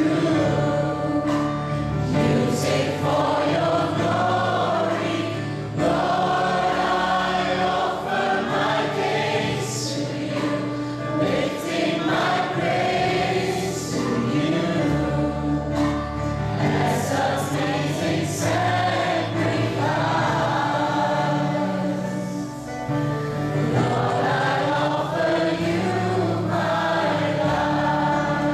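Church worship band performing a slow Christian worship song: male and female voices singing together over held instrumental chords.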